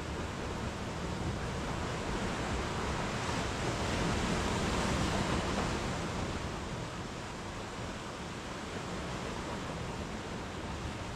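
Sea waves breaking and washing up a small sandy cove, the surf swelling to its loudest about four to five seconds in, then easing.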